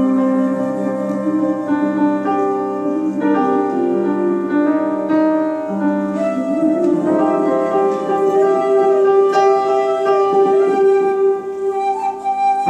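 Live small-group music: a flute playing long held notes over grand piano and archtop electric guitar, with no drums.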